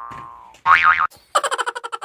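Comic cartoon-style sound effects: a pitched tone fading out, then a short wobbling, springy boing about halfway through, then a fast stuttering run of short pitched pulses.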